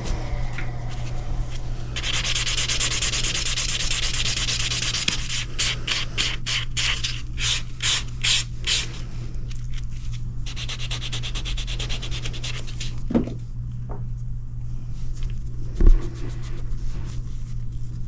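Filing and buffing the surface of a rebuilt toenail. A stretch of continuous rubbing is followed by a run of quick back-and-forth strokes, about three a second, then more rubbing, over a steady low hum.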